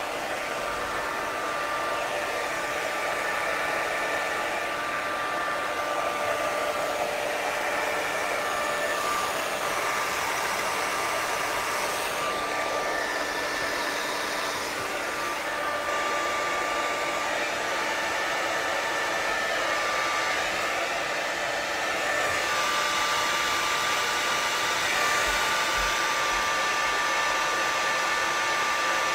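Handheld hair dryer with a diffuser attachment running steadily: an even rush of air with a thin steady motor whine, used to dry curly hair.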